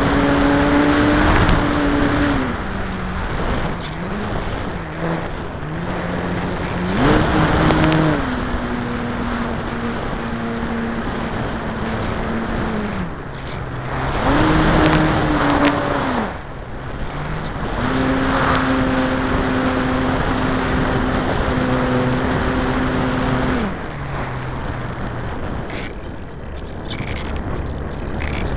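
Radio-controlled model airplane's motor heard from a camera on board, over steady wind rush. Its pitch steps up and down as the throttle is opened and cut back: high at the start, again about seven and fifteen seconds in, and for a long stretch from about eighteen to twenty-four seconds, then low near the end.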